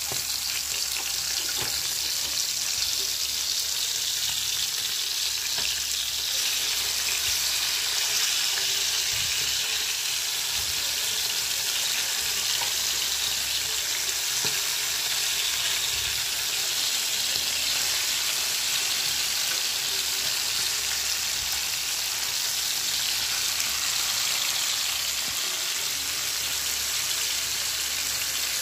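Buthai (sardines) sizzling steadily as they fry in hot oil in a pan, with a few light knocks and scrapes of a metal spatula turning them.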